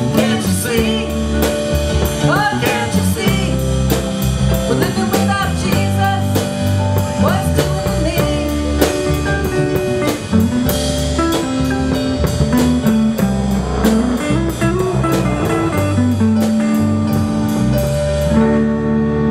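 Live blues-rock band playing an instrumental break: electric guitar lead with bent notes over bass guitar, keyboard and a drum kit keeping a steady cymbal beat. The cymbals drop out near the end while the bass and keys carry on.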